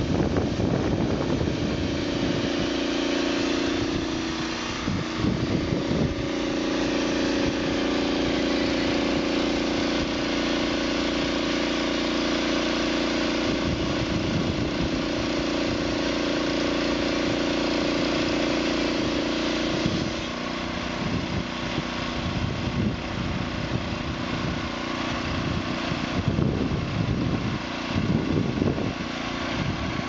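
Small engine of a homemade band sawmill running steadily while its band saw blade cuts through a pine log. About twenty seconds in, the sound gets a little quieter and less even.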